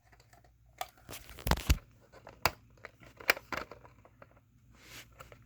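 Clicks, knocks and scrapes of fingers working at a Gillette Captain Kelly 929 smoke alarm, trying to pry its battery door open. The loudest are two sharp knocks close together about a second and a half in.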